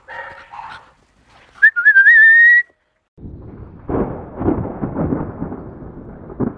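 A loud whistle rising slightly in pitch, lasting about a second, then a few seconds of rumbling noise with several soft thumps.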